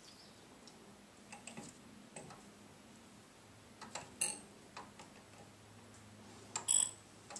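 A few light clicks and glassy clinks of a plastic dropper bottle's tip touching the rims of glass test tubes while solution is squeezed into them. The sharpest clink comes about four seconds in, and two more close together near the end.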